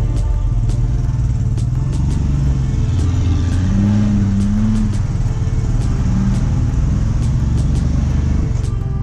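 Royal Enfield motorcycle engine running steadily while riding, a low continuous drone; its pitch rises and dips briefly about four to five seconds in.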